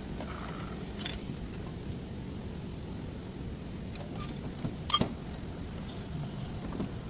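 A car's steady low running rumble with a few light clicks and one sharp knock about five seconds in.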